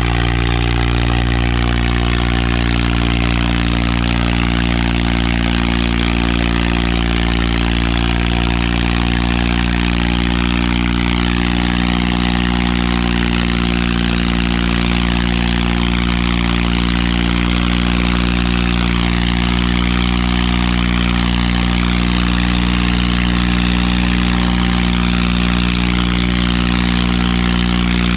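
Swaraj 855 FE tractor's three-cylinder diesel engine running hard at a steady pitch while pulling two disc harrows through soil under heavy load.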